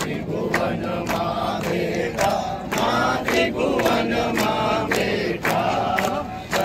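A crowd singing a Hindu devotional aarti to the goddess together, with sharp rhythmic claps about twice a second keeping time.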